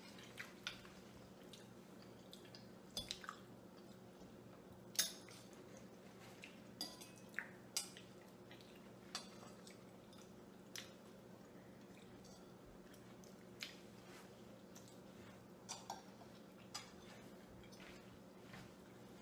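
Metal forks clinking and scraping on dinner plates, a sharp tap every second or two, over a steady low hum.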